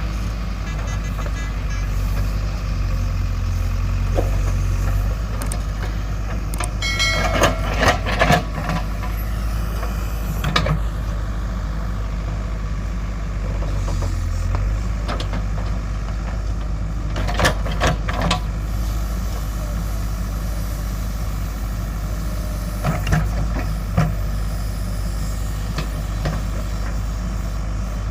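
JCB 3DX backhoe loader's diesel engine running steadily under work, with sharp metallic clanks and knocks coming in several clusters.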